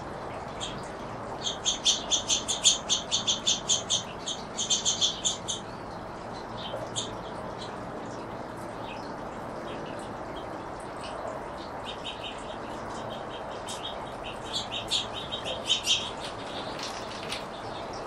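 Small finches at a seed feeder chirping: a fast run of short, high chirps, about four a second, for a few seconds, then scattered chirps, and a second, softer run near the end.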